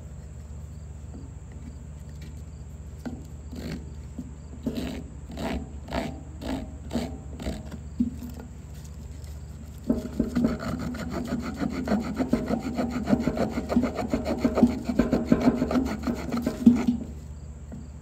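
Saw blade of a Victorinox Swiss Army Hiker pocket knife sawing into damp wood: a few separate strokes, then about seven seconds of quick, continuous back-and-forth sawing that stops suddenly.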